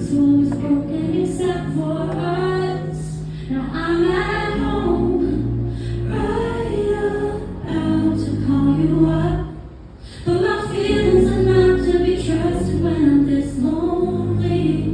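Live pop song: a woman singing lead over instrumental accompaniment, with a brief break in the music about two-thirds of the way through.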